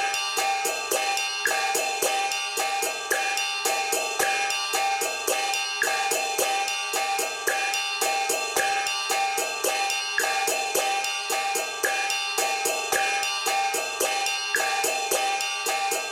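Background music with a steady, even drum beat and busy hi-hat or cymbal strokes over sustained chords.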